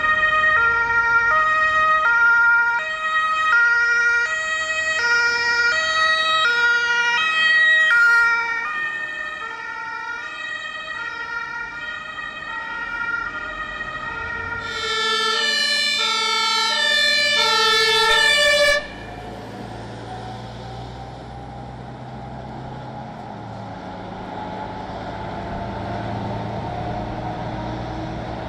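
German two-tone emergency sirens (Martinshorn) stepping back and forth between two pitches, first on a German Red Cross ambulance whose sirens drop in pitch as it passes, then on a fire-service hook-lift truck. The second siren cuts off suddenly and is followed by the low, steady running of the truck's engine.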